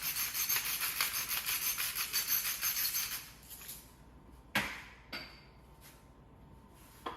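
A hand-turned spice mill grinding seasoning for about three seconds: a dense, rapid rasping. It is followed by a sharp knock about four and a half seconds in and a few lighter clicks.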